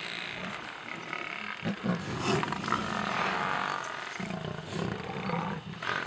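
Lions growling and snarling at a charging Cape buffalo, in several short outbursts.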